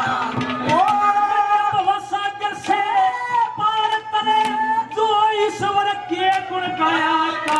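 Male folk singer holding one long, high note of a Haryanvi ragni, bending into and out of it, with irregular drum strokes underneath.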